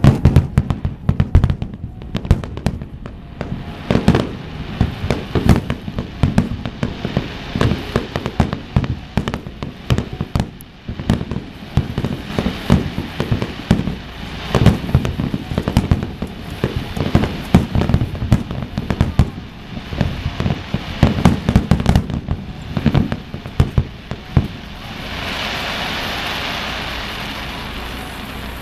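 Fireworks barrage: shells bursting in quick succession, several booms a second, for over twenty seconds. Near the end the booms stop and a steady crackling hiss takes over.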